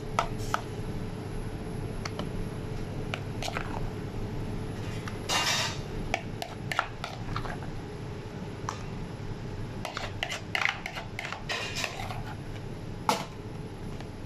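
A metal spoon scraping and clinking against a bowl and a plastic takeaway tray as thick hummus is scooped out and spread. There are scattered clicks and a few short scrapes over a steady low background hum.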